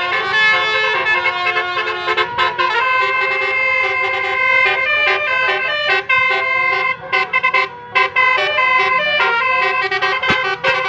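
Bus telolet horn, a set of multi-tone air horns, playing a quick melody of short stepped notes with several tones sounding together and brief breaks about seven seconds in.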